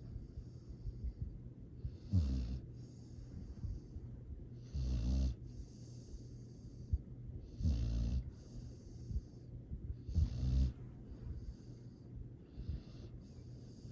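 A sleeping pet snoring: four deep snores about two and a half to three seconds apart, with soft hissing breaths between them.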